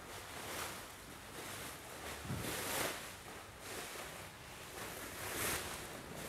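Plastic bags rustling as they are handed from person to person, in swells about once a second.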